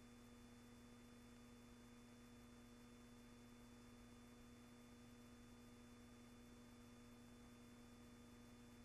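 Near silence: a faint steady hum with a few fixed tones under an even hiss, with no events.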